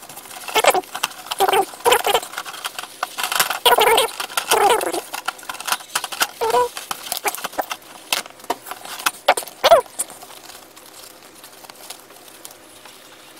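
Paper towels torn off the roll and crinkled as they are wrapped around a loaf: a run of crackling rustles and tearing with a few short squeaks, easing off for the last few seconds.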